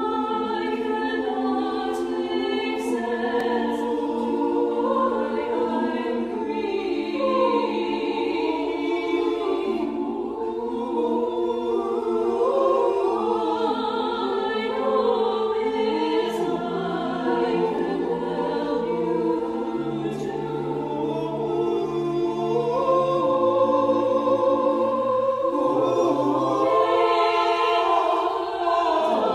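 Mixed-voice chamber choir singing a slow choral piece in sustained, shifting chords. Low notes come in about halfway through and step downward.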